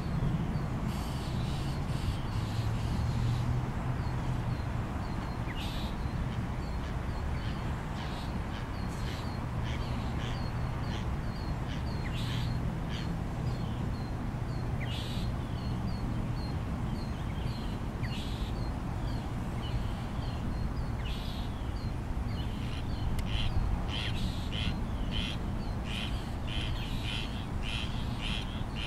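Northern mockingbird giving repeated harsh, raspy chack calls, the mobbing calls it aims at a perched red-tailed hawk. The calls come irregularly at first and speed up to several a second near the end, over a steady low rumble.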